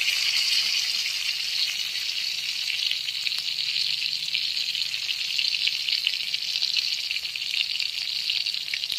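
Thai-style cha-om omelette frying in hot oil: a steady sizzle with fine crackling.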